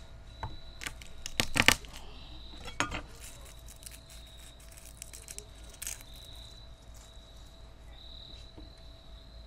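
Wood fire crackling, with a handful of sharp pops, the loudest cluster about a second and a half in. Crickets chirp behind it as a steady, even high tone.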